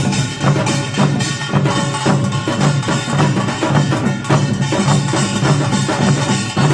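Korean pungmul percussion ensemble playing a fast, even rhythm of repeated drum strokes.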